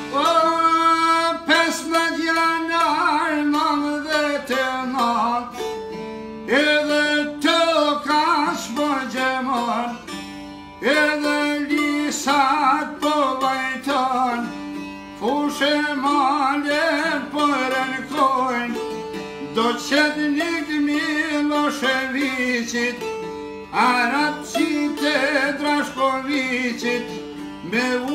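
Albanian folk song played on plucked long-necked lutes, one with a round banjo-like skin body, with a man singing along to the strings.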